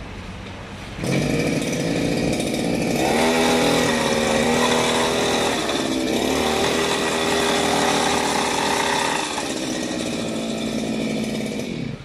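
TD40 brush cutter's small two-stroke engine running with its metal blade spinning. It revs up sharply about a second in, rises and falls in pitch as the throttle is worked, eases off after about nine seconds, and drops away just before the end.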